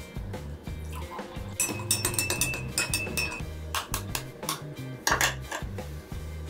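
Cutlery clinking and knocking against dishes: a run of quick clinks about one and a half seconds in, with a brief ringing note, then a few louder knocks near the end.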